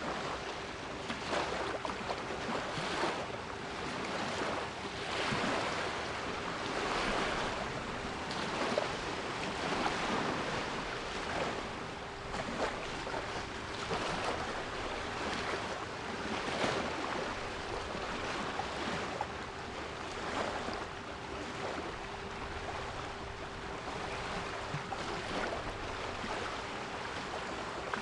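Sea waves surging and receding every few seconds, with a steady 396 Hz pure tone held underneath.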